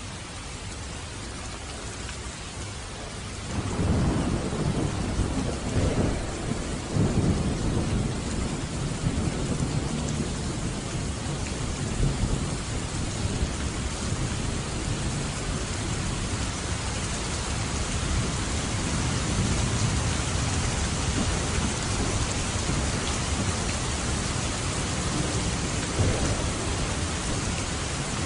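Steady heavy rain with a thunderclap a few seconds in, its deep rumble rolling on under the rain and swelling again near the end.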